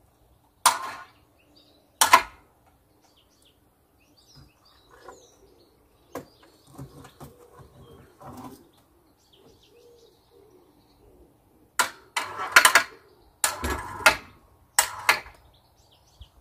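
Small electric wire-rope hoist jogged in short bursts, each start and stop snatching with a sharp clack: two about a second apart near the start, then a quick run of them near the end. Between them, faint bird chirps.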